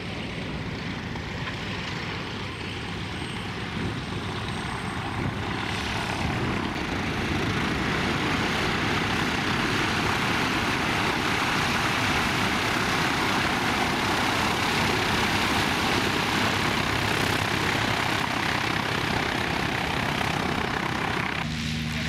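Piper Pacer light taildragger's engine and propeller running on the runway. A steady hum grows into a louder, rushing noise from about six seconds in, and the steady engine hum returns just before the end.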